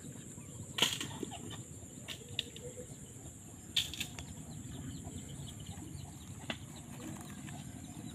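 Close handling noise and rustle as a large crab is held and turned over in the hand, with three sharp clicks at about one, four and six and a half seconds in. A steady high insect drone runs underneath.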